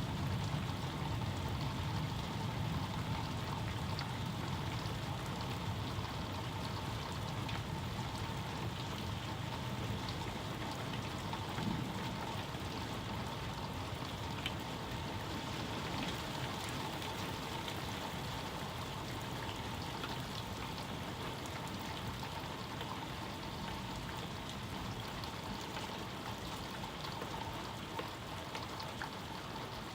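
Steady rain falling, with scattered sharper drop ticks. A low rumble of thunder fades away in the first few seconds.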